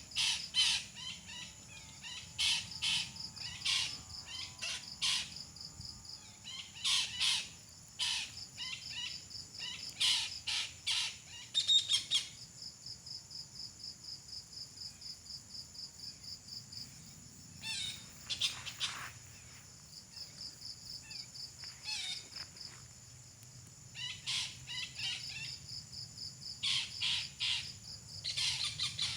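Betet parakeet calling in several bursts of rapid, sharp chirps with pauses of a few seconds between them, over a steady high-pitched insect trill.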